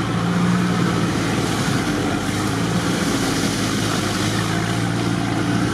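Off-road 4x4's engine running steadily as it drives along a wet, muddy dirt track, with the engine's low, even hum under a wash of tyre and road noise.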